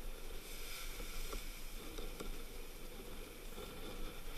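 Steady rush of wind and breaking sea spray along a sailing yacht heeled over in rough water, with wind buffeting the microphone and a few faint spray ticks.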